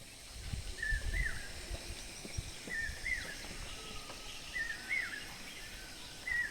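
A bird repeating a short whistled call, a brief flat note followed by a quick rising-and-falling hook, about once every two seconds. A faint high steady hiss sits underneath, with a few soft low knocks in the first couple of seconds.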